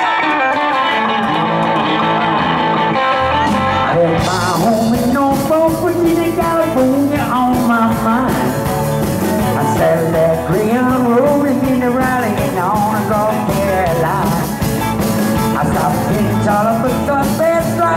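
Live band playing a song: electric and acoustic guitars, with the drums and cymbals coming in about four seconds in, and a man singing into a microphone over them.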